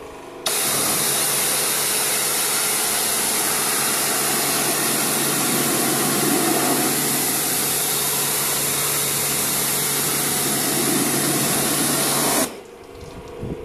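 Pressure washer spraying through a flexible underbody lance into a van's wheel arch: a loud, steady hiss of the water jet with a low pump hum beneath. It starts abruptly about half a second in and cuts off about a second before the end.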